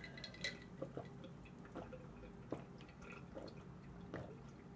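Faint eating sounds: quiet chewing with a few scattered small clicks.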